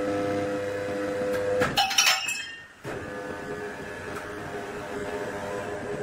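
Sawmill machinery running with a steady hum. About two seconds in comes a short burst of clattering knocks, then the sound cuts out for half a second before the hum returns.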